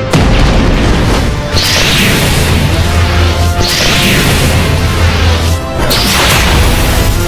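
Monster-fight sound effects over dramatic background music: a loud crash at the start, then heavy booms and impacts with a low rumble, and three sweeping whooshes about two seconds apart.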